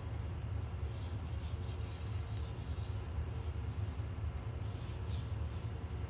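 A steady low hum with faint scratchy rubbing of hands and skin on a smooth wooden wand as it is handled and turned.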